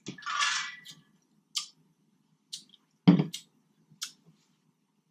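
Close-miked eating sounds: a brief wet sucking sound near the start, then a few sharp lip smacks and chewing clicks, the loudest about three seconds in.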